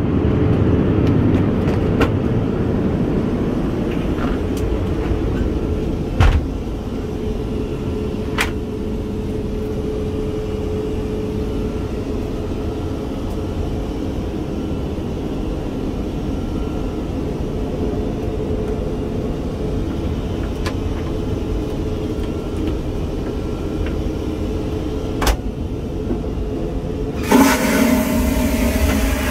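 Boeing 787-9 cabin noise in flight: a steady low rumble with a faint steady hum and a few sharp clicks. Near the end a loud rushing hiss starts suddenly.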